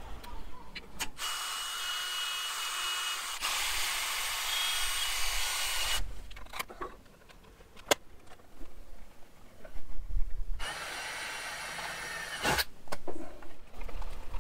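Hand-held power tool running in two bursts: one of nearly five seconds starting about a second in, and a shorter one of about two seconds near the end, with a few sharp clicks between them.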